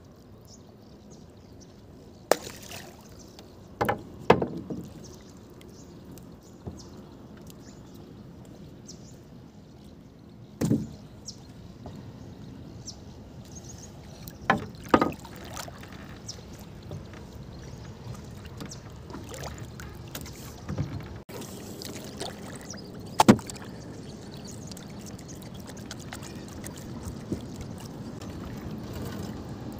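Knocks and thumps on a wooden rowboat's hull and planks as a net is handled, about eight scattered through, the sharpest one near the end, over a steady low wash of water against the boat.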